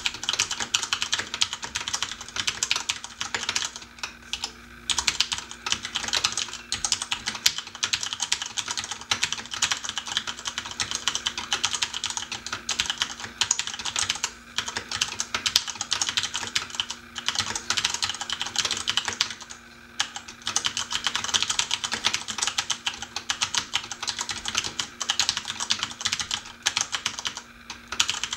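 Mechanical keyboard with Cherry MX switches being typed on quickly and continuously: a dense run of key clicks and clacks, broken by a few brief pauses. A faint steady hum from an air-conditioning unit runs underneath.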